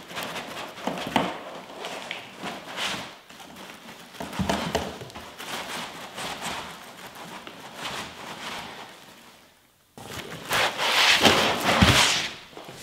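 Foam packing blocks scraping and rubbing against a cardboard box as a heavy boxed computer is pulled out, with plastic wrapping rustling. A louder burst of plastic rustling comes in the last few seconds.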